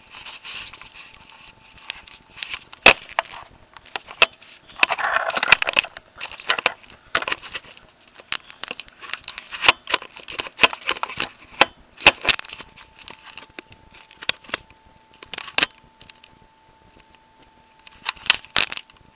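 Camera handling noise: an irregular run of sharp clicks and knocks with rustling, loudest about five seconds in, as the camera is moved and rubbed about. A faint steady high tone sounds underneath in the second half.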